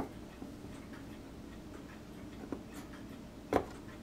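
Small hobby chisel pressed into a plastic model part, shaving off moulding flashing: a few faint scraping clicks, the loudest about three and a half seconds in.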